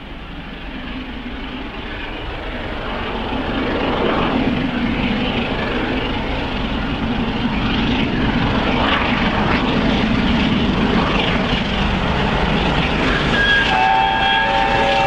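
Peppercorn A1 Pacific steam locomotive 60163 Tornado, a three-cylinder engine, working hard as it approaches with a heavy train. Its exhaust beat and running noise grow louder over the first few seconds, then hold steady. Near the end its whistle sounds, several notes at once.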